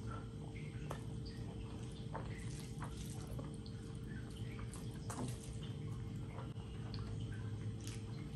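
Wet eating sounds from rice and curry eaten by hand: chewing and lip smacks along with fingers squishing and mixing the rice, heard as many short, scattered clicks and smacks. A steady low hum runs underneath.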